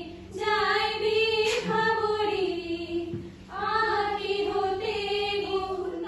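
A small group of women singing a song together in long held phrases, with a brief pause for breath about three seconds in.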